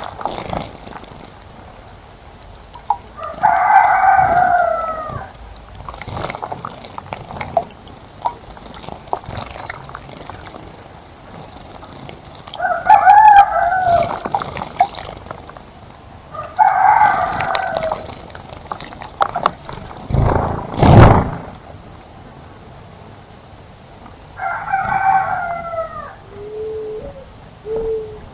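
A rooster crowing four times, each crow lasting about a second and a half, with small birds chirping in short high notes between the crows. A loud low thud comes about twenty seconds in.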